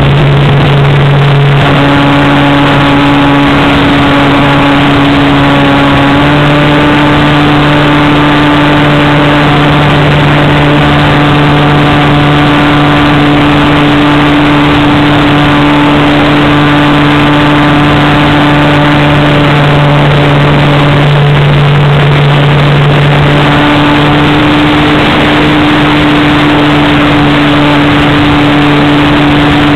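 Electric 1400kv brushless outrunner motor and propeller of an RC airplane running in flight, heard close up from the onboard camera: a loud steady drone over rushing air noise. The pitch steps up slightly about six seconds in and wavers around twenty-one seconds in.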